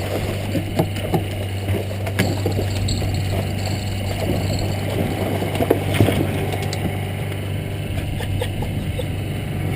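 A boat engine running at a steady idle, a constant low hum, with scattered knocks and clicks over it.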